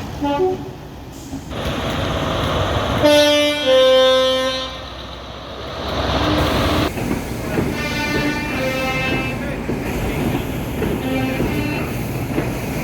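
Train horn sounding several blasts over the rumble of a moving train. A short toot comes at the start, then a loud blast about three seconds in that drops in pitch partway through as the train goes by, then quieter blasts later on.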